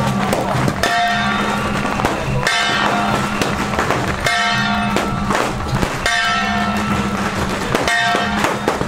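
Music: a short phrase repeating about once a second over a steady low drone.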